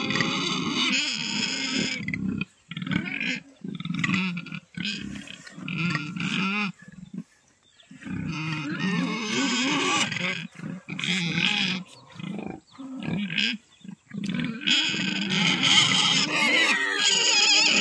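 Pig grunting and squealing in harsh, repeated bouts with short breaks between them, as it waits for the feed of chopped greens being mixed in front of it.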